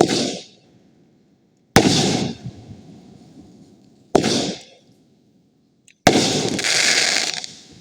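Fireworks going off: four sharp bangs about two seconds apart, each fading away, the last one ringing on for over a second.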